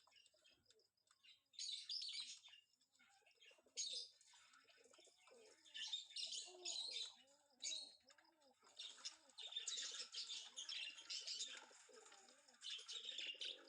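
Pigeons cooing in repeated low, rounded calls, coming thick and fast from about five seconds in, over a busy chatter of small birds chirping.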